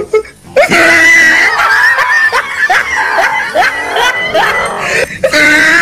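A frightened dog yelping in quick, repeated high-pitched cries while it flees from a fake tiger.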